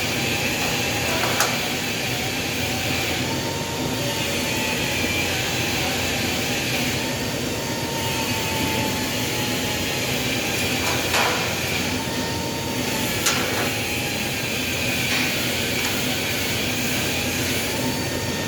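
Sharp cracks of a stud welder firing as studs are welded onto a distribution-board breaker door, four shots a few seconds apart, over a steady machine hum.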